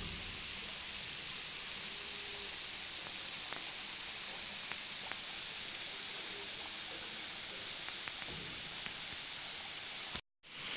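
Steady rushing hiss of a tall, thin waterfall splashing onto rocks into its plunge pool. The sound drops out briefly near the end.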